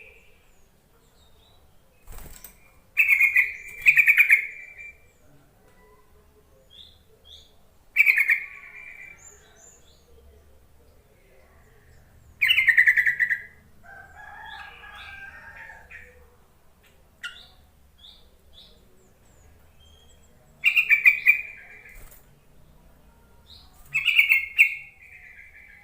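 Yellow-vented bulbul (trucuk) calling: short, loud, bubbling chattering phrases, about six of them spaced several seconds apart, with faint higher chirps between.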